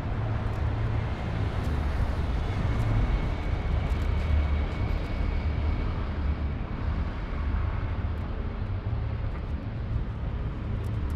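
Steady city street traffic noise, a continuous rumble and hiss of passing vehicles.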